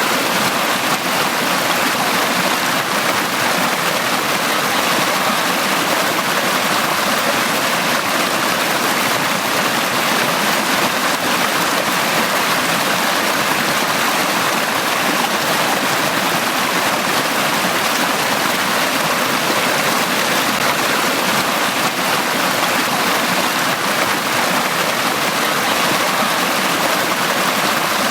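Valley stream flowing steadily: an even, unbroken rush of running water.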